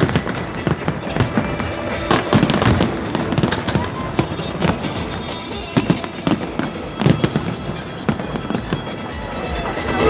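Fireworks going off in a dense run of sharp bangs and crackles, coming in irregular clusters of quick bangs a couple of seconds apart.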